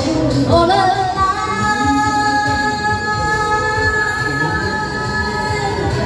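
Woman singing a Cantonese pop song into a handheld microphone over a backing track with a steady beat, holding one long note that starts about a second in and lasts almost to the end.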